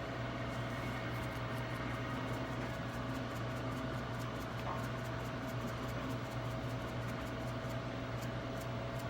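Eggs frying in a pan, with a faint crackle of small pops throughout, over a steady kitchen hum.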